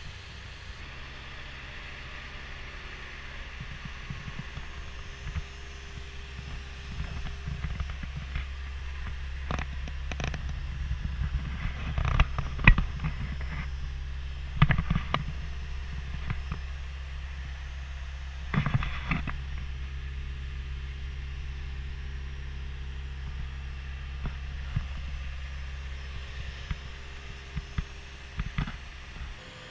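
Caterpillar 289D compact track loader's diesel engine idling steadily, with several clunks and knocks of handling around the cab, most of them in the middle and one near the end.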